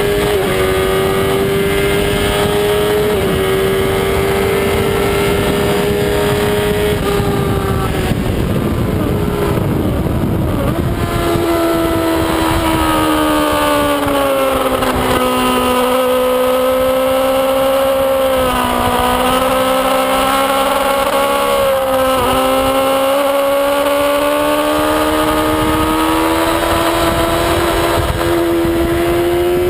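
Suzuki GSX-R sport bike's inline-four engine heard from on board at racing speed, with heavy wind rush. It runs at high revs on the straight, drops off as the throttle closes and the bike slows into a corner about seven seconds in, runs low through the turn, then climbs steadily under acceleration from about two-thirds of the way through.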